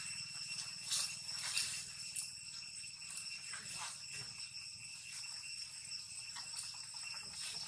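Steady high-pitched insect buzzing, with a few short clicks and rustles in the first couple of seconds.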